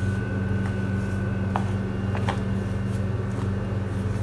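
A steady low machine hum, with a faint thin high whine that stops about a second and a half in. A few faint soft clicks come from a hand working water into crumbly flour-and-ghee mixture for dough.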